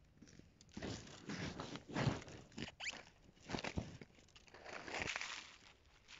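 Crunching and rustling of frosted dry leaves and grass in irregular bursts, with a short rising squeak a little under three seconds in.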